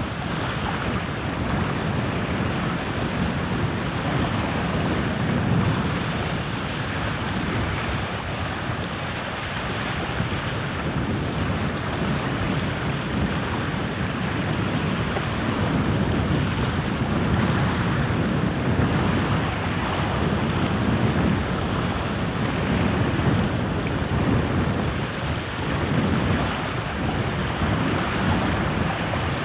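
Wind gusting on the microphone over choppy lake water, with small waves lapping the shore. It is a steady, low rumble that swells and fades in gusts.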